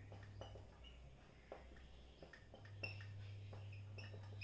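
Faint squeaks and light taps of a marker pen writing on a whiteboard, short and irregular, over a low hum that fades out about half a second in and returns near the middle.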